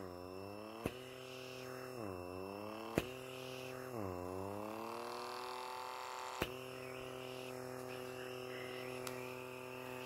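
Small electric motor of a handheld pore vacuum blackhead remover running with a steady hum, its pitch dipping sharply and slowly climbing back several times as the suction nozzle is pressed onto the nose. A few short sharp clicks sound over it.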